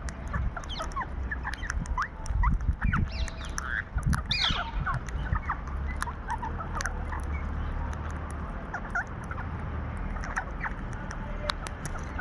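Parrots giving many short, sharp squawks and chirps in quick succession, over a steady low rumble.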